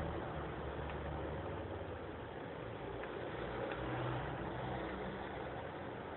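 An engine running steadily, with a continuous noisy hiss over a low hum that shifts slightly in pitch.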